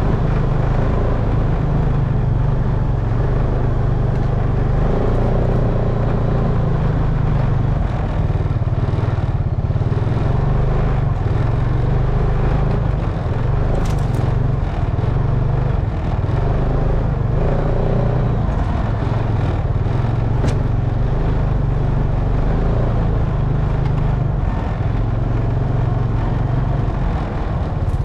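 Honda Rancher ATV's single-cylinder four-stroke engine running steadily under way, its pitch wavering only slightly, with a couple of brief clicks midway.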